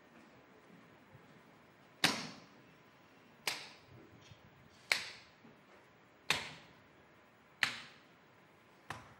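Tap shoes striking a wooden stage floor: six single, sharp taps spaced about a second and a half apart, starting about two seconds in, each ringing briefly in the hall's echo, the last one lighter.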